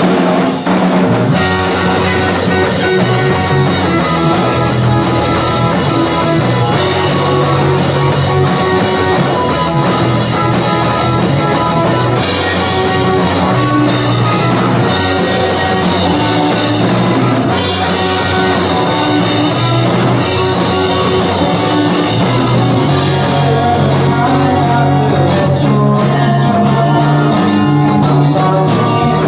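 Live rock band playing loudly: electric guitars, bass and drum kit together, with a steady beat.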